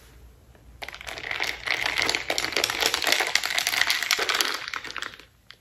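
Metal straw stirring a drink in a glass mason jar: a dense, rapid rattling and clinking that starts about a second in, runs for about four seconds, then stops.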